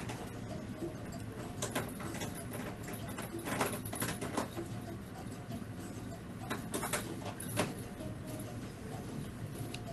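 Faint handling noises as a liquid lip colour tube and its applicator wand are used: scattered small clicks and rustles, most in a cluster about three and a half to four and a half seconds in and another around seven seconds, over a steady low hum.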